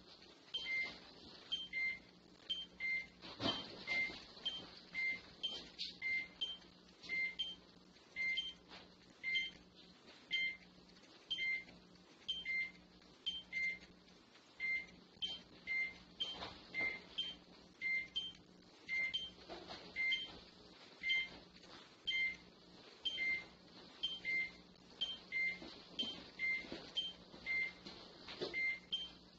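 Electronic security-alarm beeping: short, high beeps repeating steadily at about two a second, with a few faint knocks and clatters in the background.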